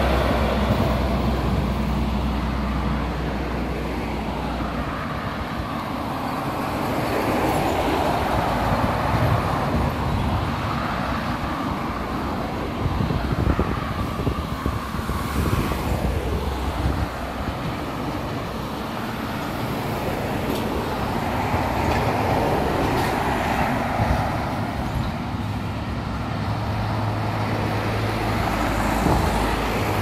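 Road traffic passing, cars and a truck swelling up and fading away in turn over a low engine hum, with gusty wind rumbling on the microphone.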